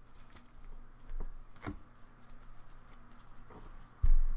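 Trading cards being handled by gloved hands: soft slides and rustles of cards against each other, then a sharp low thump near the end.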